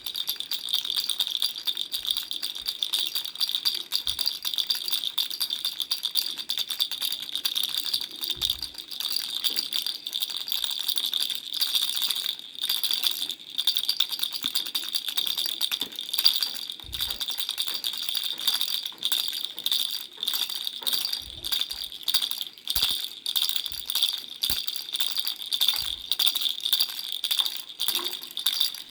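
A parrot baby rattle shaken continuously, giving a dense stream of rapid rattling clicks over a steady high ringing tone.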